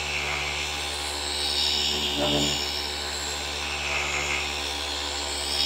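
Flex FX3331 24V cordless gear-driven orbital polisher running steadily with a heavy-cut pad on car paint. Its whine swells and eases slightly as it is worked across the panel.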